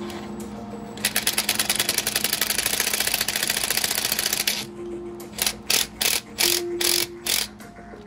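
A ratchet wrench clicking rapidly for a few seconds as a fastener is run in, then a handful of shorter ratcheting strokes.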